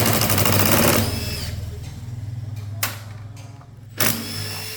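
Impact wrench hammering in a loud burst of rapid blows for about a second, then spinning down with a falling whine. A second short burst comes near the end, over a steady low hum.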